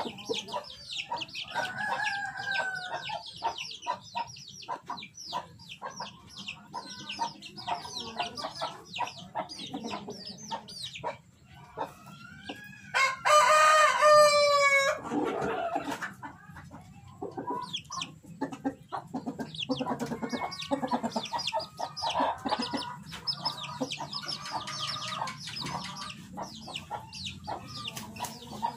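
A rooster crows once about halfway through: a single loud call lasting about two and a half seconds. Softer clucking calls come before and after it, over constant quick high chirping in the background.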